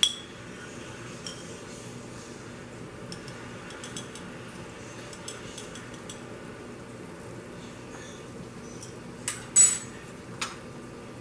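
Kitchen utensils clinking against a stainless steel cooking pot over a steady low hiss. There are a few light clinks, then the loudest two sharp clinks close together about nine and a half seconds in, and one more a second later.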